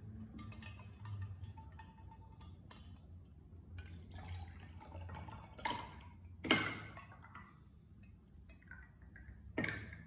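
Coconut water poured from a stainless steel milk pitcher into a glass, trickling and splashing, with a few sharp knocks: the loudest about two-thirds of the way through and another near the end.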